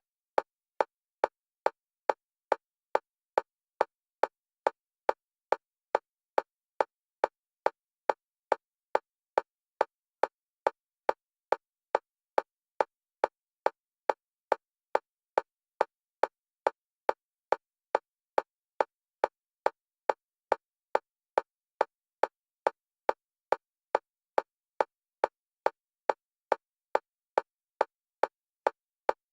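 Fast electronic metronome clicks, all at one pitch and evenly spaced at about two to three a second, with silence between them. They alternate between the left and right stereo channels for bilateral stimulation in EMDR.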